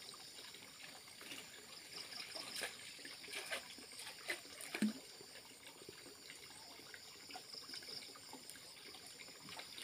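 Faint water sloshing and trickling as a person wades waist-deep in muddy water and gropes in it by hand, with scattered small splashes.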